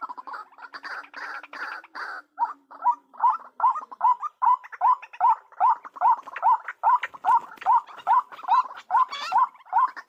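White-breasted waterhen calling: about two seconds of harsher croaking notes, then a fast, even run of short rising notes, about three a second.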